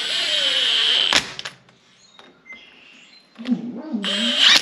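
Cordless impact tool hammering on a power steering pump's bolts: one run of about a second, a pause, then a second short run near the end that rises in pitch.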